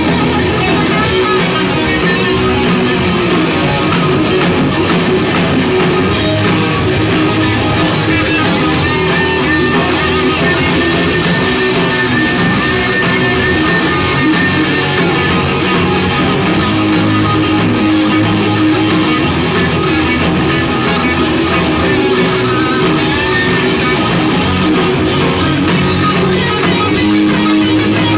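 A live rock band playing loudly: electric guitar over a drum kit, with no break.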